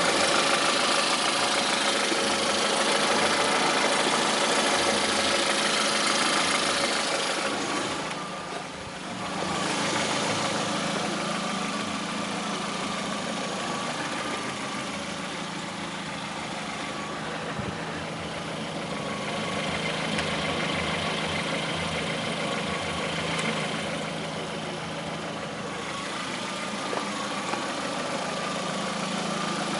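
Lada Priora's VAZ-21126 1.6-litre sixteen-valve engine running steadily at idle with a knock that the owner blames on the Suprotec additive he used. The tags point to a worn or failing hydraulic lifter or a piston-side fault. The sound drops briefly about nine seconds in.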